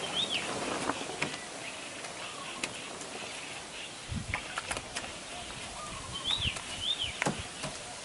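Birds calling with short whistled notes that rise and fall, over a steady outdoor hiss. In between, a tool clicks and scrapes in a plastic bucket of cement, with a few sharp knocks a few seconds in.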